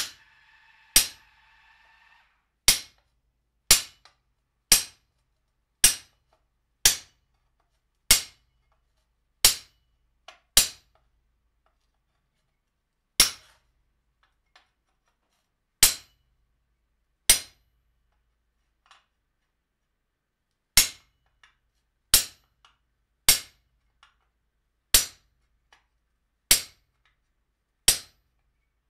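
A hammer striking a hand-held cold chisel with a slightly curved edge, cutting lines into a sheet-metal skillet blank on an anvil. Sharp single strikes come about a second apart, with a few longer pauses between runs of blows. The first blow leaves a short ringing tone.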